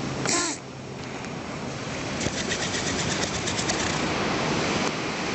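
A sleeping animal snuffling through its nose as it breathes, with a short sharp snort about half a second in and a rapid fluttering snuffle later on.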